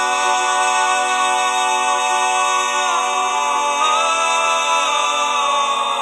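A cappella vocal music: layered voices sing sustained chords, with the harmony shifting about halfway through.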